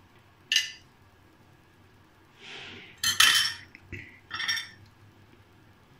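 A steel spoon clinking against a drinking glass: a few separate clinks, the loudest about three seconds in, as red syrup is stirred into a glass of cold water.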